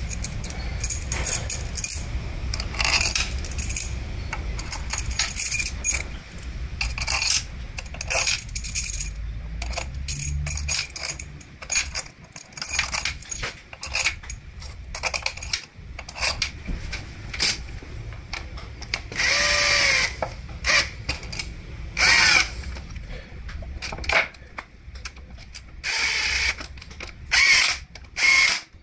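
Steel bolts clinking and tapping against the aluminium valve body of a CVT transmission as they are set in by hand. In the second half a cordless drill-driver whirs in several short runs, the longest about a second and a half with a sweeping pitch, driving in the 10 mm valve body bolts.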